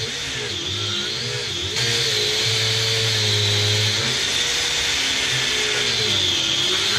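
Angle grinder with a thin cutting disc running and cutting through a roll of tape. Its whine wavers in pitch under load and gets louder about two seconds in.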